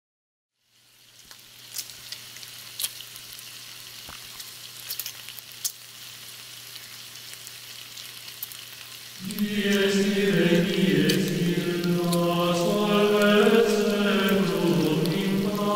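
Crackling hiss with scattered sharp pops over a faint steady hum; about nine seconds in, low chanting voices come in, holding long notes that step up and down in pitch.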